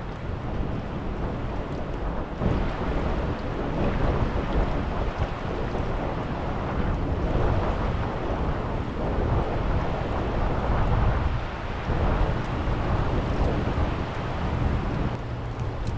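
Wind buffeting the microphone over the rush of the river's fast current, swelling and easing.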